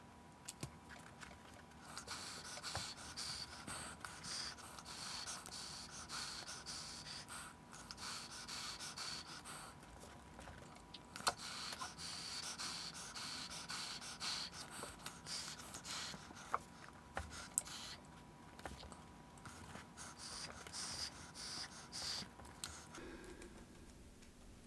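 Faint rustling and rubbing of hands working a foam puppet head and felt mouth plate, with scattered light ticks and a couple of sharper clicks.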